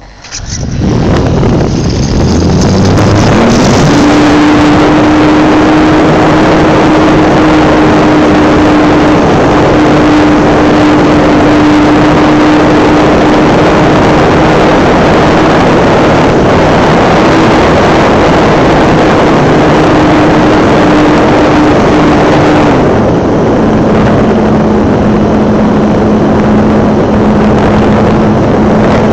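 RC model airplane's motor and propeller heard from a phone riding on the aircraft, with heavy wind rush over the microphone. The pitch climbs over the first few seconds as the throttle opens for takeoff, holds a steady high drone, then drops to a lower steady note about 23 seconds in as the throttle is eased back.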